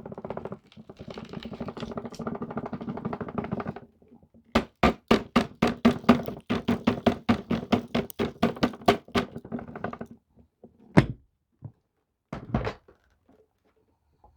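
Vacuum cleaner sucking up crunchy debris: a dense crackling, then a fast run of sharp clicks and clatters as bits strike the nozzle and hose, then a few single knocks.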